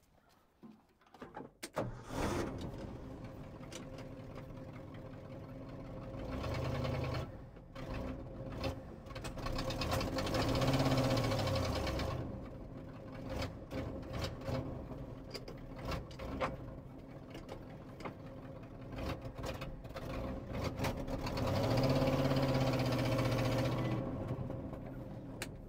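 The 1968 Ford F350's 360 cubic-inch FE V8 running rough, rising and falling in revs three times. She is not running happily, and the owner suspects the fuel pump.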